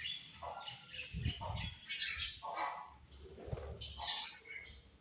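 Budgerigars chirping and chattering: many short, high chirps and squawks coming irregularly, loudest about two seconds in.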